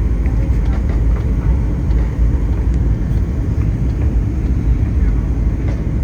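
Airliner cabin noise: a steady, loud low rumble from the engines and airflow, with faint scattered rattles.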